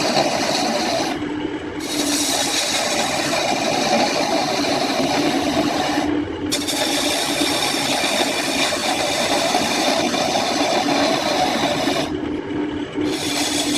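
A power tool abrading wood with a steady motor tone under a rough scraping noise. The cutting sound drops out briefly three times, about a second in, about six seconds in, and near the end.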